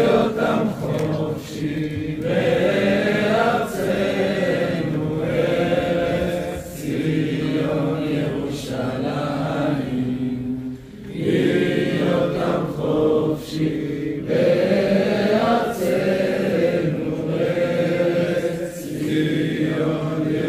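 A crowd of people singing together, a slow song in phrases of a few seconds each with short breaks between them.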